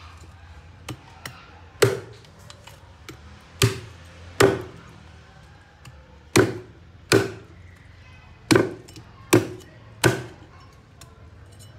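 Cleaver chopping through raw pork ribs on a wooden chopping block: two light taps, then eight hard chops at an uneven pace, each with a short ringing tail.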